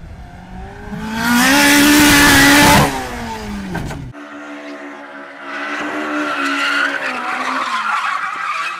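A car engine revving hard, rising to a loud peak and dropping off. After a cut, another engine runs at steady revs, then tyres squeal as a car drifts.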